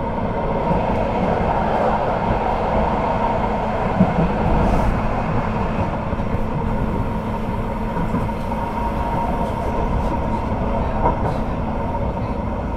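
Duewag/Kiepe B80D light-rail car running on the line, heard from inside the passenger compartment: a steady rumble of wheels on rail under a continuous motor hum, with a couple of single knocks.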